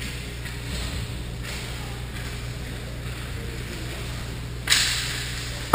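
Ice hockey heard from behind the goal: a steady arena hum with faint skating. Near the end comes a sudden loud scrape of skate blades on the ice that fades over about a second, then a sharp knock.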